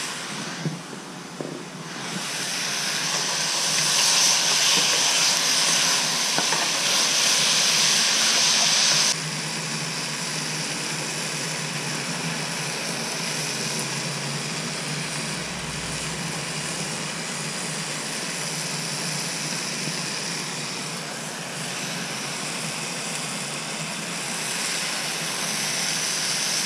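Steady sizzling of fish and vegetables frying in oil in two pans on a propane camp stove, with the burners hissing underneath. The sizzle is louder for the first several seconds, drops abruptly about nine seconds in, then carries on steadily.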